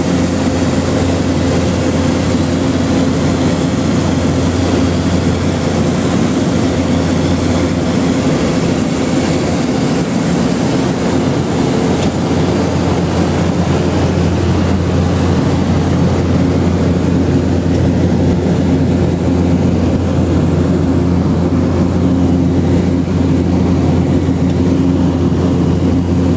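Cessna 208B Caravan's single Pratt & Whitney PT6A turboprop engine and propeller running steadily in cruise, heard from inside the cabin: a loud, unbroken deep drone with a thin high whine above it.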